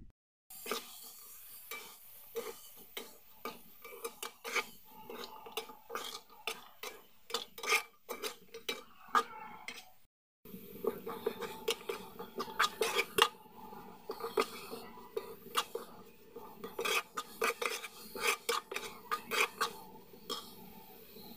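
A slotted metal spoon stirring chopped vegetables in a metal pot, clinking and scraping against the pot's sides and bottom in quick, irregular strokes. The sound drops out briefly about ten seconds in.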